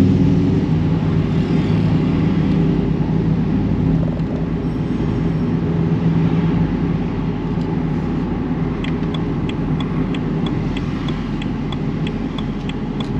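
Car driving in traffic: steady engine hum and road noise. A light regular ticking, about three a second, comes in about nine seconds in.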